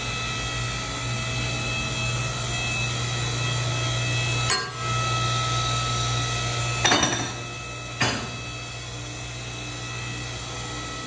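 Work-shop noise: a steady machine hum with faint high whines, broken by three sharp metallic knocks of tools, about halfway through and twice more a few seconds later. The hum drops after the last knock.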